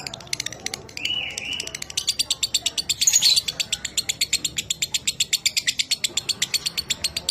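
Lovebird giving its long chattering trill ('ngekek'): a fast, even run of sharp high notes at about ten a second. A short whistled note comes about a second in.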